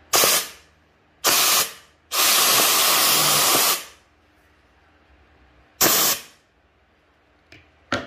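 Compressed-air JACK vacuum gun hissing in four bursts as it sucks up loose threads and scraps: two short blasts, one long one of nearly two seconds, then, after a pause, another short one.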